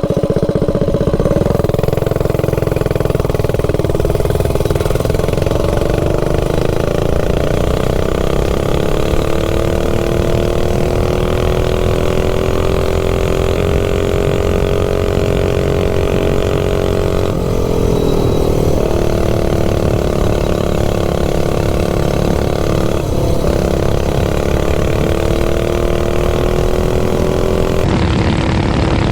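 Minibike's Stage 3 clone engine running hard under load on a freshly richened Nibbi carburetor, its pitch climbing slowly with speed. The revs dip briefly about 17 and 23 seconds in as the throttle is eased, then pick back up. It pulls cleanly through the mid-range.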